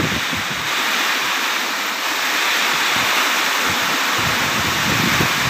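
Heavy storm rain pouring down in a steady, dense hiss. Low gusts of wind buffet the microphone, easing off after the first second and returning near the end.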